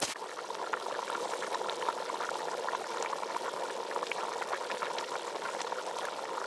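Pot of plov (rice, meat and water) boiling over a wood fire: a steady bubbling with many small pops.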